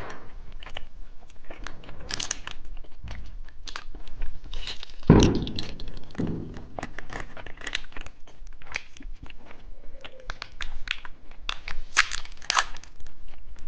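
Candy wrappers being torn open and crinkled, a run of sharp crackles and rustles, with one heavy thump about five seconds in.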